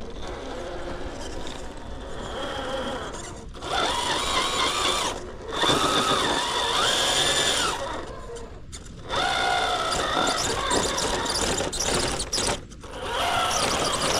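Electric motor and gear train of an RC rock crawler whining in several throttle bursts, the pitch rising and falling with speed, with short pauses between bursts.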